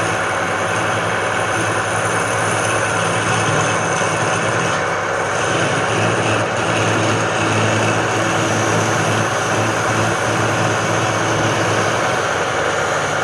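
Wood lathe running steadily: a low motor hum under an even rushing noise.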